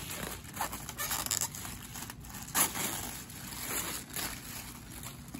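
Inflated plastic bubble-cushion film rustling and crinkling as it is handled, with several sharp crackles, the loudest about two and a half seconds in.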